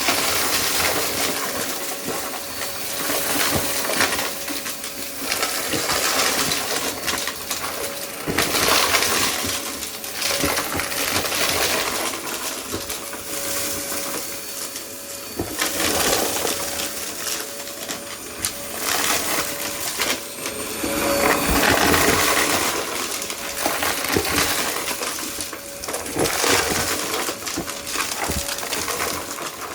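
Vacuum cleaner running and sucking up small hard debris, which rattles and clatters through it in dense, uneven bursts over a faint steady motor whine.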